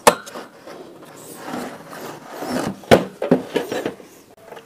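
Wire front grille of a quartz room heater being fitted back onto the heater's metal body: a sharp click at the start, scraping and rattling of the wires, then another sharp click about three seconds in followed by a few lighter clicks.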